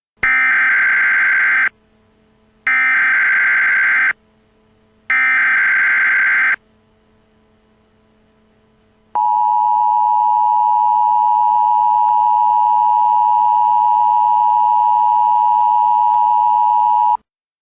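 Emergency Alert System signal: three bursts of screechy SAME header data tones, each about a second and a half, encoding a tornado warning. After a short pause comes the two-tone attention signal, a steady dual-tone alarm that holds for about eight seconds and cuts off suddenly.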